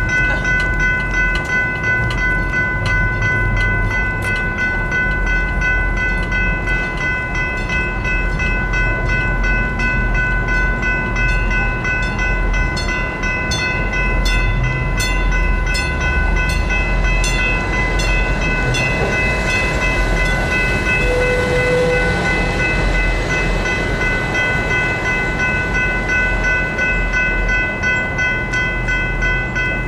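Railroad crossing warning bell ringing steadily as a CapMetro MetroRail Stadler GTW diesel railcar rolls through the grade crossing. A run of regular wheel clicks comes about halfway through, followed by a swell of passing-train noise.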